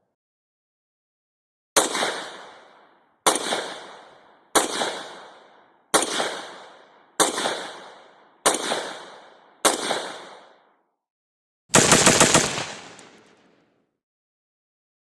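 Firearm fired seven single shots, one every second or so, each followed by an echo, then a short rapid automatic burst.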